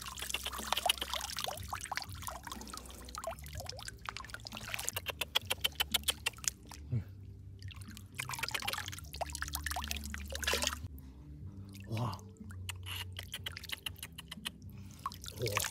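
Water splashing and dripping as cupped hands scoop small fish out of shallow water, with a quick run of drips and splashes a few seconds in.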